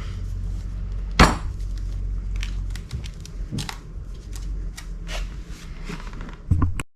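Scattered clicks and knocks of coilover parts (coil spring, spring seat, washers and top isolator) being handled and fitted together, with one sharp knock about a second in, over a steady low hum. The sound cuts off suddenly just before the end.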